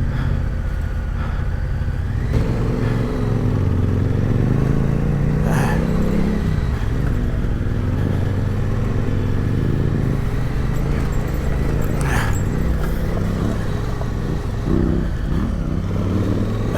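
Adventure motorcycle engine running under load on a rough off-road track, its pitch rising and falling with the throttle. Sharp knocks and clatter come twice, about five and twelve seconds in.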